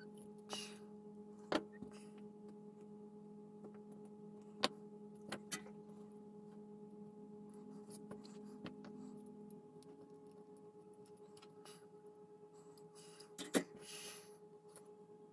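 Light clicks and taps from small tools and wire leads being handled at a workbench as LED wiring is joined, a few of them sharp, over a faint steady hum whose lowest tone stops about two-thirds of the way through.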